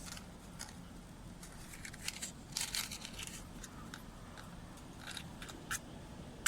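A small wood fire of damp wood crackling, with irregular sharp snaps that bunch together in the middle and one sharp snap at the very end.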